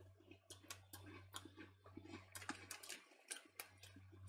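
Faint chewing of a light puffed maize snack (Tayto Meanies, pickled onion flavour): a scatter of soft crackles and mouth clicks over a low steady hum.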